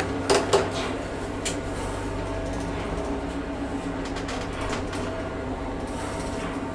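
1977 ZREMB traction elevator: the car doors close with three quick clunks in the first half second, then the car travels up the shaft with a steady motor hum and rumble.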